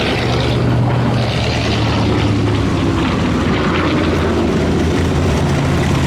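A column of WW2 Universal Carriers driving in convoy: their Ford V8 engines running with a steady drone under the noise of steel tracks on gravel.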